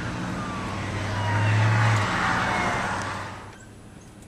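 A motor vehicle passing close by on the road: its noise swells, then fades away about three and a half seconds in, with a faint tone dropping in pitch as it goes past.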